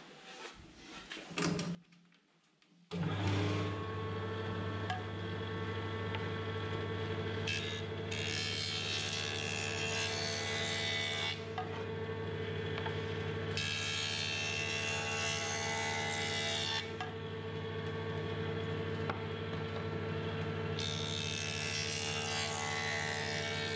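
Jointer switched on about three seconds in, its motor and cutterhead then running with a steady hum. Three times a plywood board's edge is fed across the cutterhead, each pass adding a few seconds of cutting noise as a thin tapered sliver is planed off.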